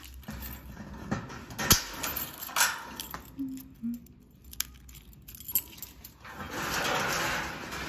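A bunch of keys jangling as a key is worked in and pulled from the lock of an old metal door, with several sharp clicks in the first few seconds. A longer rush of noise follows near the end.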